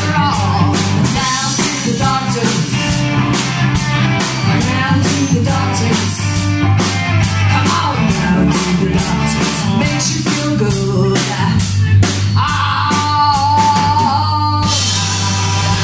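Live rock band: a woman singing into a microphone over electric guitar and a drum kit keeping a steady beat. Near the end she holds one long note, then the drumbeat stops and the band rings on.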